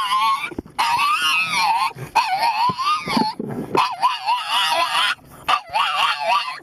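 A dog whining and howling in drawn-out "talking" cries, the pitch wobbling up and down, in several stretches with short breaks.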